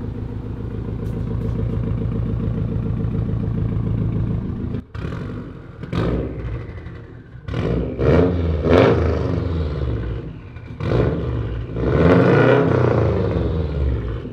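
2015 Subaru WRX STi's turbocharged flat-four idling steadily through a Tomei Expreme Ti titanium catback exhaust, then revved several times from about five seconds in, its pitch rising and falling with each rev.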